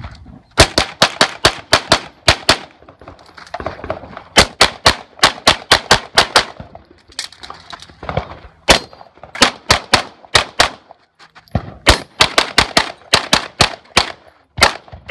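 Pistol fired in rapid strings: dozens of sharp shots a few tenths of a second apart, broken by several short pauses.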